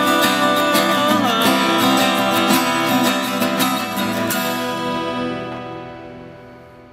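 Two acoustic guitars playing the closing bars of a folk song. The last strums come about four seconds in, then the final chord rings out and fades away.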